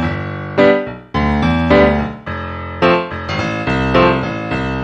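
Background music led by an electric piano playing a steady sequence of chords.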